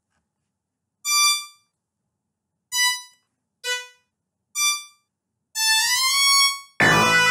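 FL Studio 'Violin' preset notes auditioned one at a time in the piano roll: four short separate notes at different pitches, then a longer note that slides up in pitch as it is dragged. Near the end, playback of the full pattern starts, with many notes sounding together.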